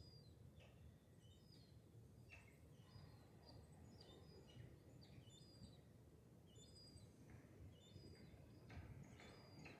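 Near silence: faint, short, high bird chirps come now and then over a low, steady background hush.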